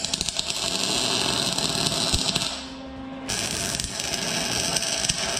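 Electric arc welding on a small steel bracket with a Lincoln Electric welder: a steady crackling hiss. It stops about two and a half seconds in, then starts again under a second later for a second bead.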